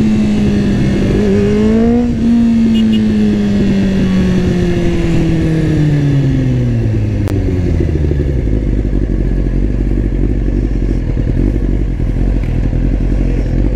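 Motorcycle engine coming down from high revs, its note falling steadily over several seconds and settling into a steady low idle about eight seconds in.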